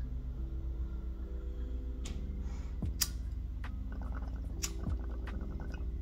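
Water bubbling in a glass bong as smoke is drawn through it: a low, rapid, steady gurgle. A few sharp clicks sound about two, three and nearly five seconds in.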